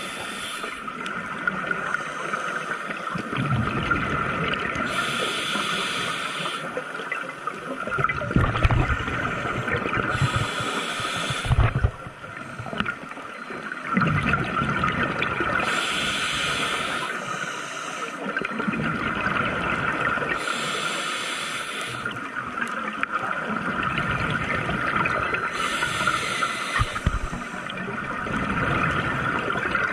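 Scuba diver breathing through a regulator underwater: a hissing inhale about every five seconds, each followed by a rumbling, gurgling rush of exhaled bubbles, over a steady high hum.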